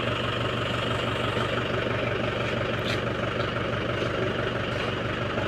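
Mahindra 415 DI tractor's four-cylinder diesel engine idling steadily, with a constant low hum.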